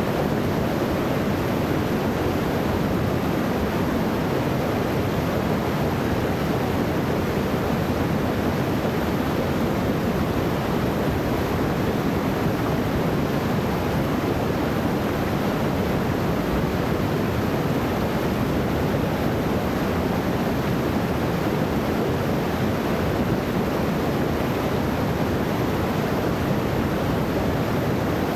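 Small waterfall on a creek pouring over rocks into a rock pool: a steady, unbroken rush of falling water.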